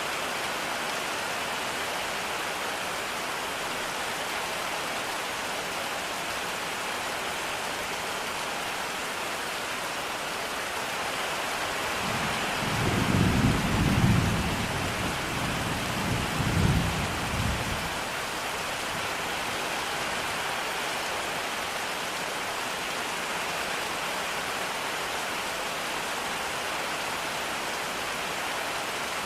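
Steady rain falling, with a roll of thunder about halfway through that rumbles for around six seconds and swells twice before fading back into the rain.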